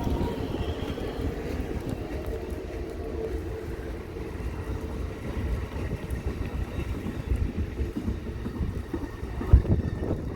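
Train rolling past with a steady low rumble and a faint tone from the wheels that slowly fades, wind buffeting the microphone, and a sharp low bump near the end.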